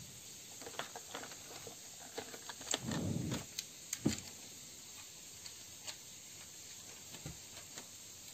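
Quiet room hiss with scattered soft clicks, a sharper click about four seconds in, and a brief muffled low sound just before it.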